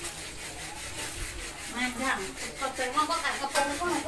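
Plastic spatula scraping and stirring rice in a pan in repeated strokes. A voice talks over it in the second half.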